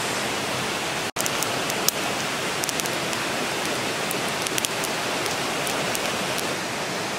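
Freshly lit campfire of split firewood crackling, with frequent sharp pops and snaps over a steady hiss.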